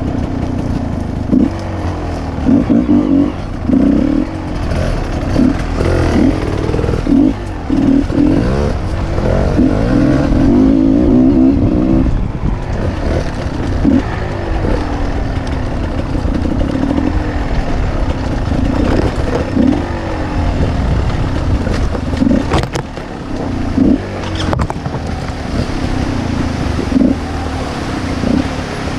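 Motorcycle engine being ridden, its revs rising and falling again and again as the throttle is opened and closed.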